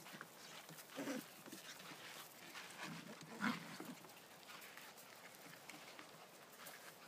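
Nine-week-old wheaten terrier puppies at play, giving two short vocal sounds, about a second in and again around three and a half seconds, amid faint scratching and rustling.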